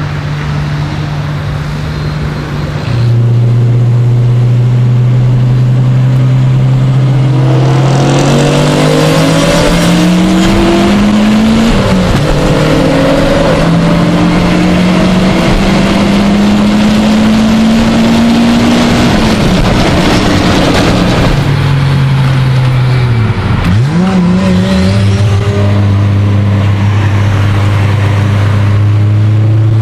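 Big-turbo Audi A3's engine heard from inside the cabin: a steady drone, then a hard full-throttle pull with the pitch rising, dropping at a gear change, and rising again before the throttle is lifted and it settles back to a steady cruise.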